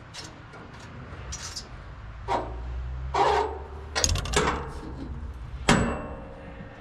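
Metal knocks and clicks from a Wood-Mizer band sawmill's blade-tensioning gear as the blade is re-tensioned. There is a cluster of knocks about four seconds in, then a single sharp metallic clank near the end as the tension comes onto the blade.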